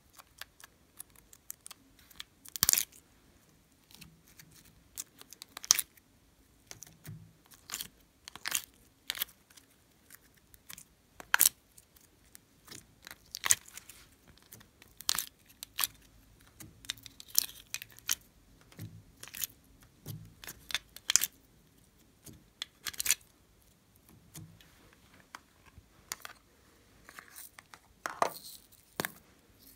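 Irregular crackles and clicks of thin plastic slime containers being flexed and emptied, with the sticky tearing of slime as it peels away into a glass bowl.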